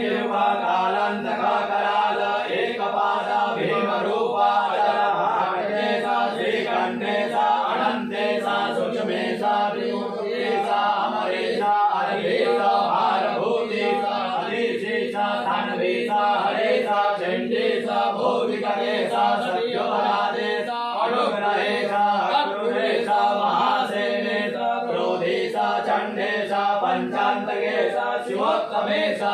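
Voices chanting a Hindu devotional mantra in unison, continuous and steady, over a held low drone, with faint regular ticks above.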